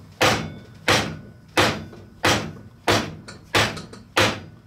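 Repeated hammer blows on a hardwood block held against a drill press chuck, driving its Morse taper arbor firmly up into the spindle. Seven sharp knocks, evenly spaced about two-thirds of a second apart.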